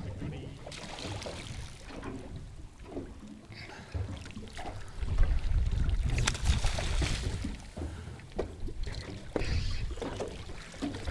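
Wind buffeting the microphone on an open boat, a low rumble that gusts strongest from about five to seven and a half seconds in, with scattered small knocks.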